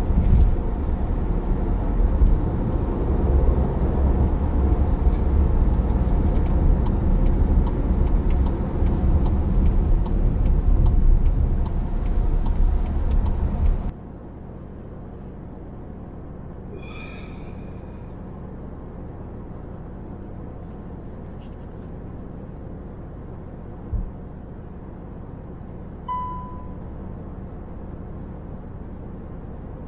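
Car-cabin road and engine rumble from a moving car, recorded on an action camera's microphone, with frequent small rattles and ticks. About halfway through it abruptly becomes much quieter and thinner, with a single knock and a short beep near the end.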